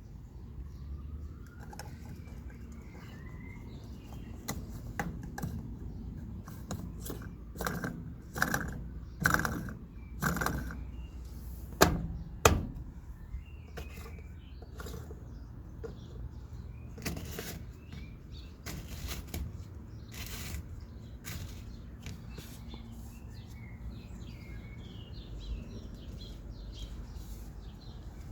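Birds chirping faintly over a steady low rumble, with bursts of knocks and clatter; two sharp clicks stand out about twelve seconds in.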